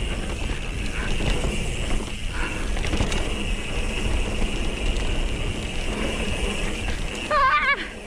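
Mountain bike rolling fast down a dirt trail, recorded on the rider's action camera: steady tyre noise over the soft, partly muddy dirt, with the bike rattling and wind rushing on the microphone. Near the end a short wavering vocal sound cuts in.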